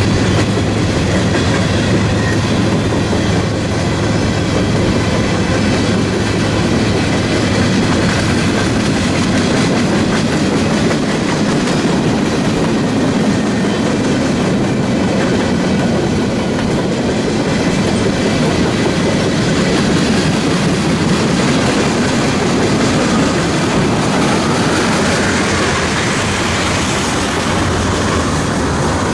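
Freight train cars, empty flatcars and then covered hoppers, rolling steadily past close by: a continuous loud rolling noise with the steel wheels clicking over the rail joints.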